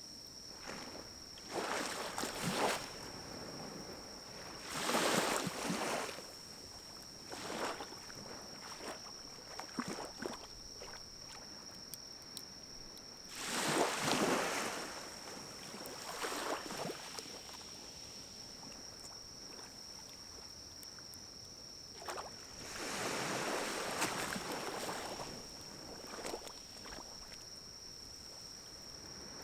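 Pine cones burning in a small wood-burning stove: scattered crackles and pops, with several whooshing surges lasting one to three seconds. A steady thin high tone runs underneath.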